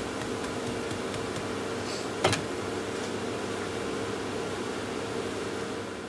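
Eggy bread slices sizzling in oil in a non-stick frying pan on a gas hob, a steady hiss with a few faint ticks. A single sharp knock about two seconds in.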